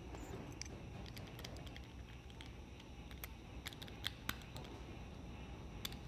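Faint, scattered small metal clicks and ticks from a Master Lock 911 padlock being worked with a key and a small tool to free its core.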